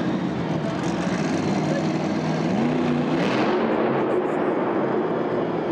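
El Toro Loco monster truck's 1,500-horsepower supercharged V8 running as the truck drives across the dirt arena floor. The revs rise about halfway through.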